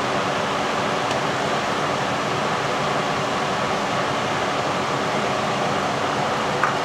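Steady, even rushing noise of a kitchen stove running while a pot of soup boils on the gas burner.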